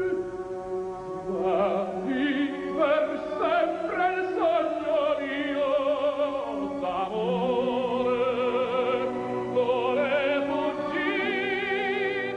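Background music: an operatic solo voice singing with strong vibrato over orchestral accompaniment.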